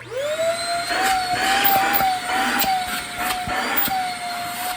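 Shark Rocket stick vacuum switched on: its motor spins up quickly into a steady high whine with rushing air, and a few clicks are scattered through it. It sounds much better already, running after the big clogs were cleared from the main unit.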